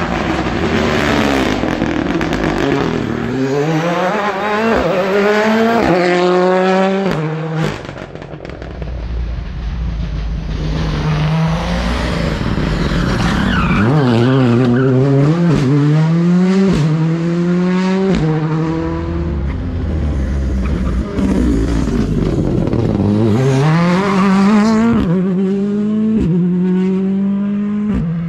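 Rally cars accelerating hard past one after another, each engine rising in pitch through a string of quick upshifts. Between passes the sound breaks off abruptly.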